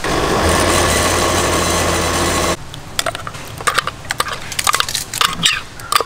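Electric blender with a glass jar running, grinding chicken meat with curry paste into a thick paste; it runs for about two and a half seconds, then stops abruptly. After that, a spoon clicks and scrapes against the jar and a steel bowl as the paste is scraped out.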